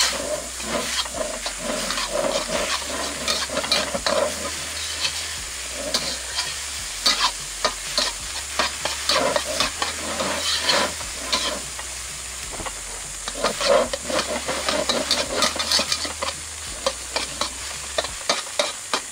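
Noodles sizzling in a hot wok while a metal wok spatula scrapes and clanks against the pan in quick, irregular strokes, stir-frying them with soy sauce.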